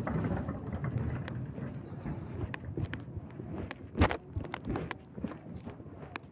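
Rubbing and handling noise on the recording phone's microphone, with scattered clicks and one sharp knock about four seconds in.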